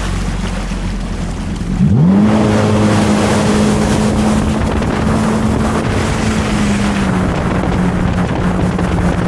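Yamaha WaveRunner jet ski engine opened up from a slow cruise: about two seconds in, the engine note sweeps up sharply and gets louder, then holds steady at speed. Rushing water and wind noise run under it.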